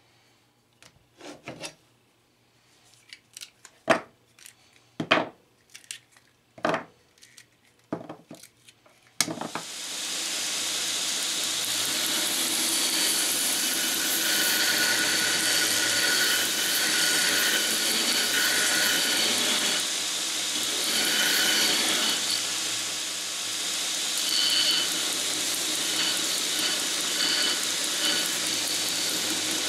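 A handful of sharp separate clicks and knocks, typical of spring clamps being taken off a glued knife handle and set down. About nine seconds in, a belt grinder takes over and runs steadily as an epoxy-stabilized corn-cob knife handle is shaped against its belt, with a higher grinding whine that swells and fades as the handle is pressed in.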